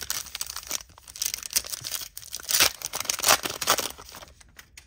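Foil wrapper of a trading-card pack being torn open and crinkled, with cards sliding out, in a quick run of rips and rustles that are loudest about two and a half and three and a quarter seconds in.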